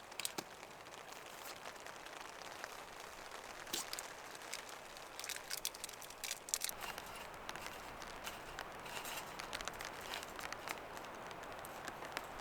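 Light rain hissing steadily, with irregular sharp crackles and crinkling clicks over it, the loudest about four seconds in and again around six to seven seconds in.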